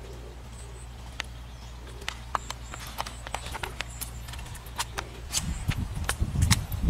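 Dry twigs and leaf litter crackling and snapping underfoot in irregular sharp clicks that come thicker as it goes. Low thumps and rumble of movement near the microphone join in near the end and are the loudest part.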